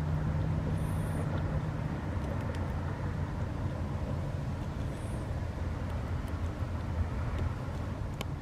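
Steady low rumble of distant city road traffic, with a vehicle hum that fades out about two seconds in. A few faint clicks come from a North American beaver gnawing a green stem.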